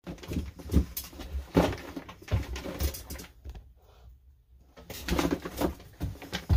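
Knocks and rattles of a plastic tub full of loose chainsaw parts being lifted and carried, mixed with rustling. There is a dense run of knocks at first, a short lull, then another cluster about five seconds in.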